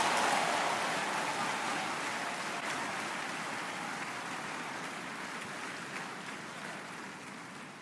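Congregation applauding, the clapping fading slowly over several seconds.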